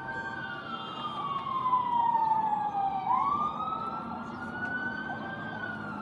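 Emergency vehicle siren in a slow wail: its pitch falls over about three seconds, sweeps quickly back up, and falls again near the end.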